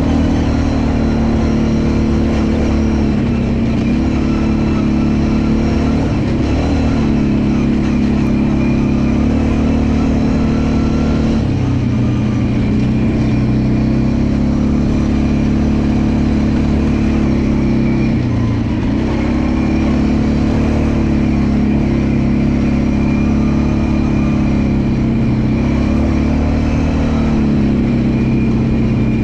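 Honda Rancher 420 ATV's single-cylinder engine, bored out to 500, running under way, its pitch dropping and climbing again several times as the throttle is eased off and opened.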